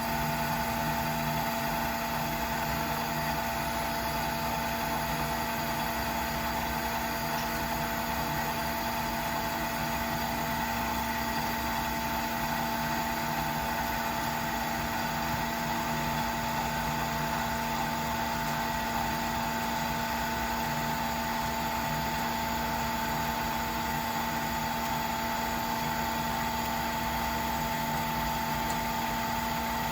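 Metal lathe running steadily: a constant machine hum with several steady tones under a hiss.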